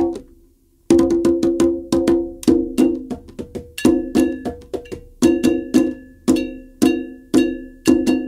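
Live percussion groove: hand drums struck in a quick, steady rhythm, with a ringing metallic tone on some strokes. The playing drops out briefly just after the start and comes back in about a second in.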